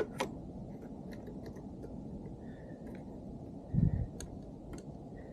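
Scattered small clicks and taps of parts and hand tools being handled during work on a motorcycle, with a dull thump near the four-second mark, over a steady low background hum.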